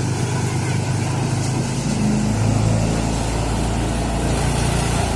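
Small engine of a power rice thresher running steadily, its pitch rising briefly about two seconds in.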